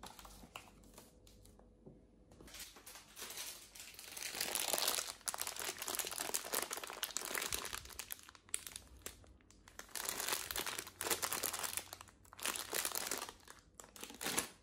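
Plastic snack bags crinkling as they are picked up, moved and set down on a pile of other bags, in bursts that come and go. A few light taps come first, as picture frames are handled.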